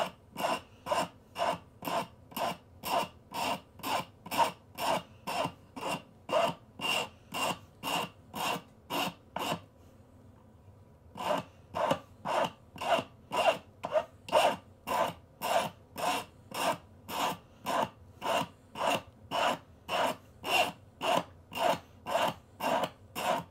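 Hand file stroking back and forth over a steel music-wire pin to taper it to a needle point, about two strokes a second, with a short pause about ten seconds in.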